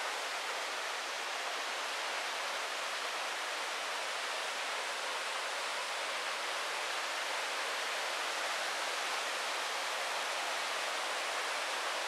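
Steady, even rush of water falling and flowing over rocks in a mountain river, with no change in level.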